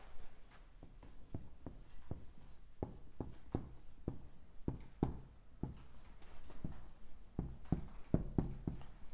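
Dry-erase marker writing on a whiteboard: an irregular run of quick taps and short strokes as a word is written out by hand.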